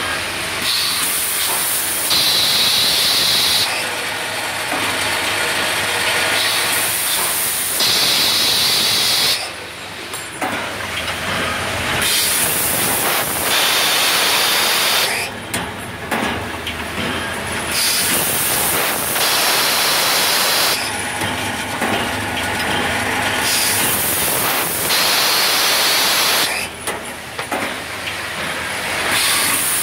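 Automatic gate valve cap and body machining machine running, with loud hissing that comes in stretches of a few seconds each, broken by short dips.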